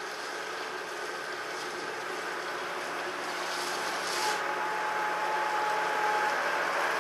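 Tractor engine running as it pushes feed with a tyre-fitted front pusher, growing louder as it comes closer. A thin steady whine sounds for about two seconds, starting about four seconds in.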